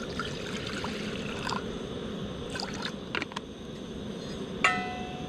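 Running water with a few small clicks through it, and one sharp metallic clink that rings briefly about four and a half seconds in.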